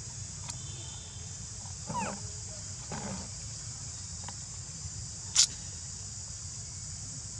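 Two short macaque calls about two and three seconds in, each bending up and down in pitch, over a steady high drone of insects. About five and a half seconds in comes a single sharp high click, the loudest sound.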